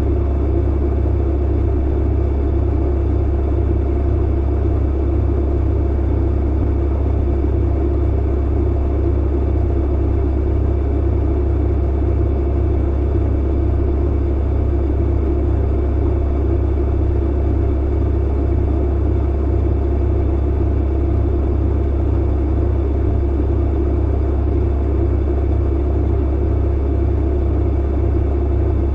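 Clothes dryer running: a steady low hum under an even rumble, with no separate thumps.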